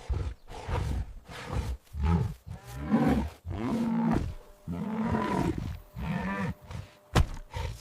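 A big cat giving a string of roars and growls, each call about half a second to a second long with short pauses between. A single sharp click sounds near the end.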